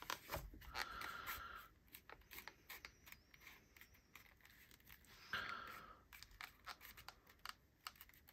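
Faint rubbing and scraping of a stiff leather knife slip as a folding knife is pushed into it and worked straight, with scattered small clicks and taps. Two longer stretches of leather rubbing come about a second in and about five seconds in.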